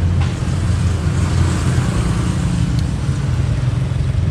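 Road traffic noise: a steady low engine drone with a constant rush of passing vehicles.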